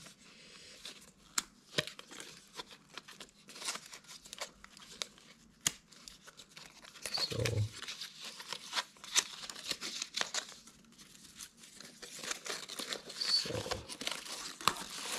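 Packaging being torn open and crinkled as a MagSafe charging cable is unwrapped: irregular rustling with many small clicks. Two brief low voice-like sounds come about seven and fourteen seconds in.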